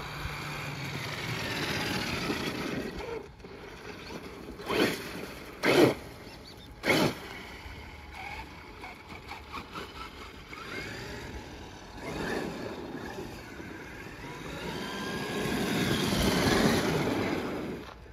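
Traxxas X-Maxx RC monster truck's brushless electric drive whining, rising and falling in pitch as it speeds up and slows, with three short loud bursts about five to seven seconds in and the loudest swell near the end.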